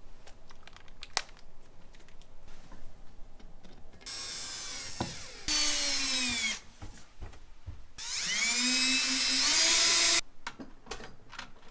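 Cordless drill/driver driving screws through a mounting plate into a wall. The motor runs twice: first from about four to six and a half seconds in, its pitch falling as the screw bites, then from about eight to ten seconds in, spinning up and holding steady before it stops. Small clicks and knocks of handling come between the runs.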